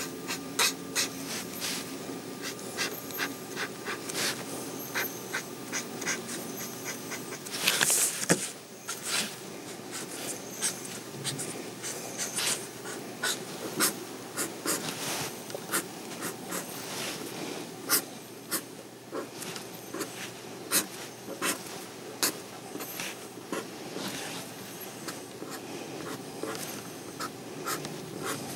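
Black ink pen scratching on drawing paper in many short, irregular strokes, with a longer, louder scrape about eight seconds in.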